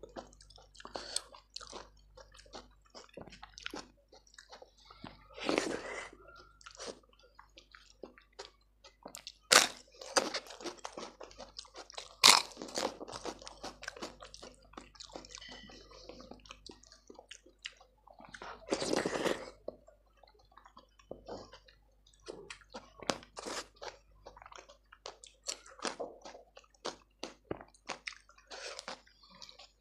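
Close-miked eating: steady chewing with many small wet clicks and crunches, likely chips or crisps crunched among softer food. Two sharp, loud crunches come about a third of the way in, and a couple of longer, noisier mouth sounds break up the chewing.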